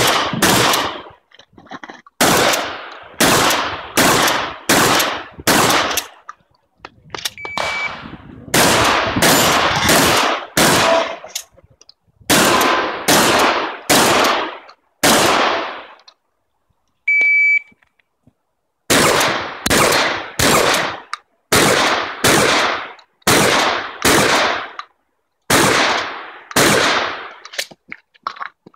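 Rapid strings of shotgun shots from a Remington 870 pump-action, about one shot every half second to a second, each with a short echo. About two-thirds of the way through the firing stops, a shot timer gives its start beep, and shooting begins again.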